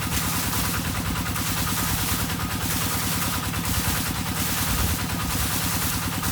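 Water pump engine running steadily with a fast low throb, under frogs calling, their chorus swelling about once a second.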